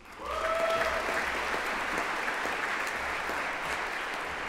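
Audience applauding in a large hall, starting a moment in and carrying on steadily, slowly fading. Over the start of the clapping, a single voice gives a short held whoop.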